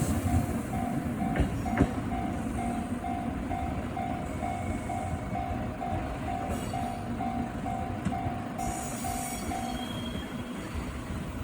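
Japanese railway level-crossing alarm ringing its electronic bell about twice a second, then stopping about ten seconds in as the crossing clears. Under it a train rumbles on the tracks, with two sharp knocks near two seconds in.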